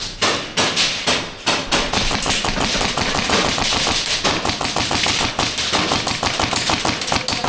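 Airsoft guns firing: a few separate shots, then rapid, nearly continuous full-auto clicking and snapping from about a second and a half in.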